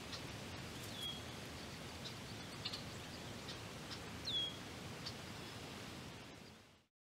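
Outdoor park ambience, a steady low hiss of background noise, with a bird giving a short falling chirp twice, about a second in and again about four seconds in. It fades out to silence near the end.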